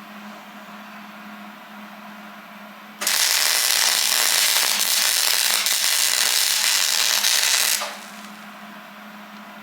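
Hobart welder's arc crackling in one burst of about five seconds that starts suddenly about three seconds in and cuts off, sealing small pinholes in the welds of a Dana 45 axle housing. A steady low hum runs before and after the burst.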